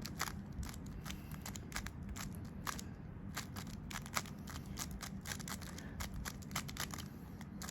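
Rubik's cube layers being turned by hand: a quick, irregular run of plastic clicks and clacks, several a second.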